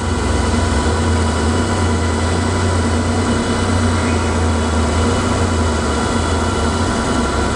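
Okamoto OGM-820UB cylindrical grinder running, with the grinding wheel spinning and the ball-screw-driven table traversing: a steady low machine hum with a few faint steady whines, louder from the start.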